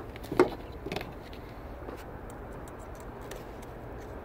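Handling clicks from an H7 halogen bulb and its plastic wiring connector: one sharp click about half a second in, a few smaller clicks just after, then faint ticks as the screwdriver is brought to the joint between them.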